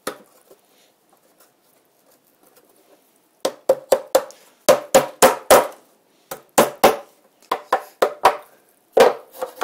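Sharp wooden knocks begin about three and a half seconds in, some twenty of them in quick groups of about four, as a tight-fitting wooden cleat is knocked into place against the side rails of a Langstroth hive bottom board.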